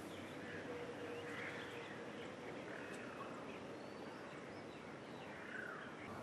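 Faint outdoor ambience: an even background hiss with a few short, distant bird calls scattered through it.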